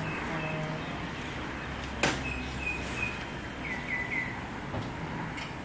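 Steady workshop background noise with one sharp click about two seconds in. Small birds chirp in short runs of about three notes, the last run falling in pitch.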